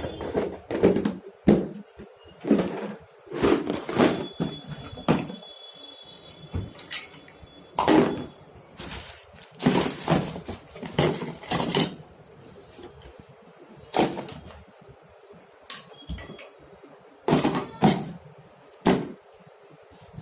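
Irregular clattering, knocking and rustling of hand tools and gear being handled and packed into a tool bag.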